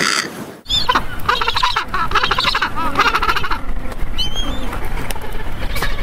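A flock of birds calling over one another, many overlapping pitched calls with a low steady noise underneath; the sound cuts out briefly about half a second in and then resumes.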